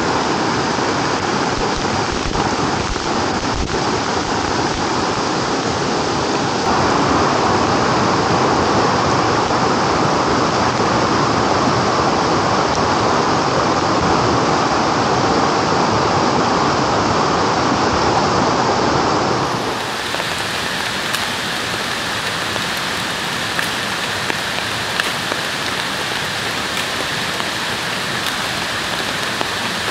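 Steady noise of a rain-swollen river running high and fast in heavy rain, growing louder about a quarter of the way in. About two-thirds in it changes abruptly to steady rain falling, quieter, with occasional separate drop ticks.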